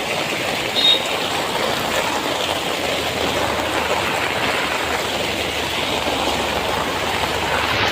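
Steady rushing and splashing of floodwater on a waterlogged road.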